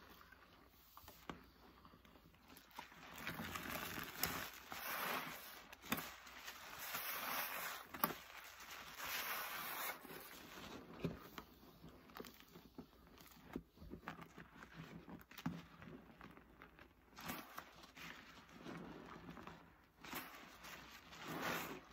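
Soapy, paste-loaded sponges squeezed and worked by rubber-gloved hands in a basin of sudsy rinse water: wet squelching and sloshing of foam and water, coming in a series of swells every couple of seconds, with small crackles of popping suds.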